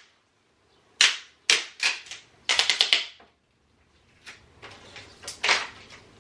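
Blue painter's tape being pulled off the roll in a few short rips, one of them a quick run of crackling ticks as the adhesive lets go.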